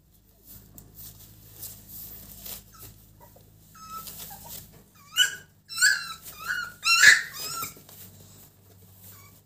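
Month-old American Bully puppies scuffling on a crate pad, then giving a run of short, high-pitched yelps and squeals over about four seconds, the loudest near the middle of the run, typical of puppy play-fighting.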